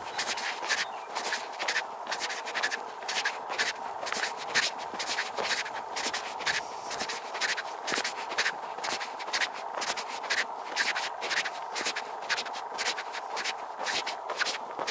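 Footsteps crunching on a dry gravel-and-dirt path at a steady walking pace, about two to three steps a second.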